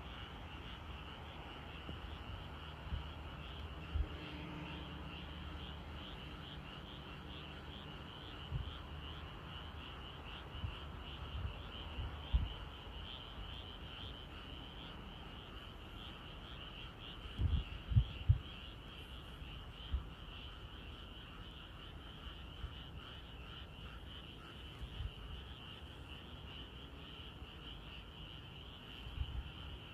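Steady night chorus of calling frogs, a continuous high trilling. A few dull low thumps break in now and then, with a cluster of them just past the middle.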